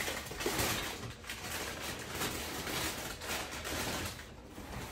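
Crumpled packing paper rustling and crinkling as someone rummages in a cardboard box; the rustling dies down near the end.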